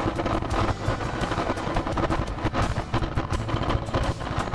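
Motorcycle engine running steadily at low road speed, with a quick, even pulsing.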